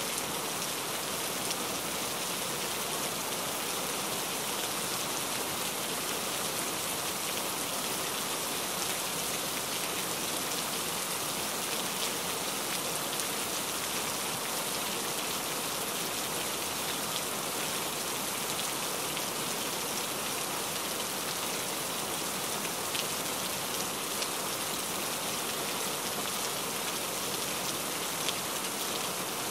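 Steady rain falling, an even hiss of many drops with a few slightly louder drop taps here and there.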